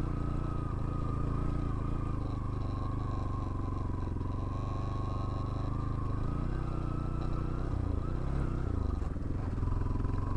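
Bajaj Pulsar NS200's single-cylinder engine running through a sound-modified exhaust while the bike is ridden at a steady pace; the engine note shifts briefly about eight seconds in.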